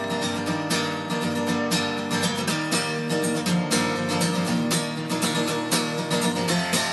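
Background music: an instrumental passage of a song with a steadily strummed acoustic guitar.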